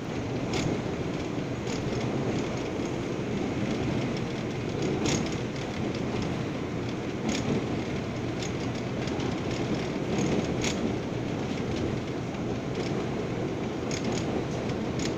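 R179 subway car running at speed, heard from inside the car: a steady rumble of steel wheels on the rails, with scattered sharp clicks from the track.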